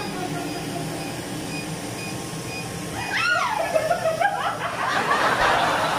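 A woman's high-pitched squeal of pain at a laser hair-removal pulse: one cry that rises, then slides down, about three seconds in. It is followed by a burst of breathy noise.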